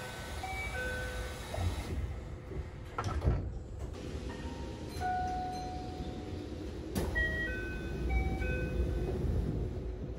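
Keihan 13000-series commuter train: a door chime of short tones, the doors sliding shut with a knock, and the train's low running rumble, with the chime and door closing heard again about seven seconds in.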